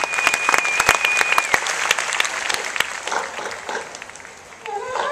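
Audience applause, dense clapping that thins out and fades away over about four seconds, with a high steady note held over it for the first second and a half. Music starts up again right at the end.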